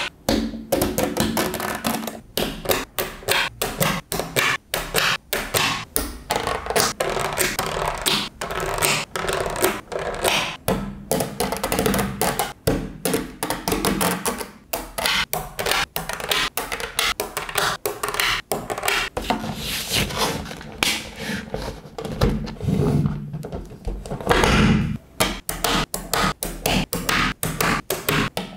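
Small magnetic balls clicking and snapping together in rapid, irregular sharp clicks, several a second, as they are pieced into a model.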